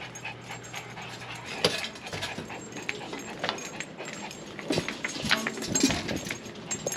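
Dog whimpering, with many small clicks and knocks close by throughout.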